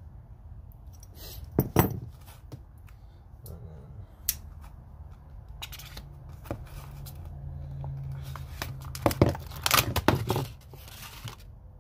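Rigid plastic blister packaging being handled and cut open, with a dense run of loud crackling and tearing about nine to ten seconds in. Before that, a few sharp knocks of a metal tool being set down and handled on the workbench, the loudest about two seconds in.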